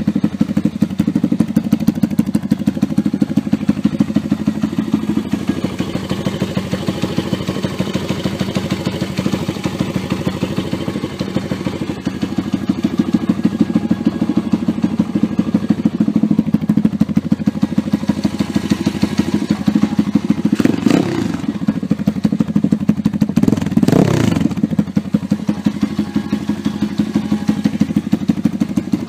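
Stomp Z140 pit bike's 140cc single-cylinder four-stroke engine running at a steady idle, with two quick throttle blips about two-thirds of the way through.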